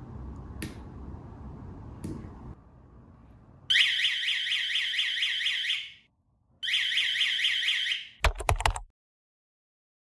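Red electronic strobe alarm siren, switched by a remote control, sounding a fast warbling wail of rapidly repeating rising sweeps. It comes in about four seconds in, cuts off, then sounds again for about a second and a half. A few sharp clicks come before it and a few low knocks after it.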